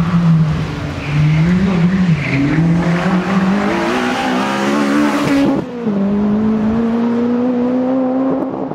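Honda Civic Type R rally car's four-cylinder engine worked hard through a hairpin. The pitch drops and jumps several times as it brakes and changes gear, then climbs steadily as the car accelerates away.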